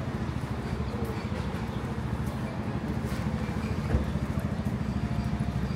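Street traffic: a motor vehicle engine running with a steady low hum, and a single knock about four seconds in.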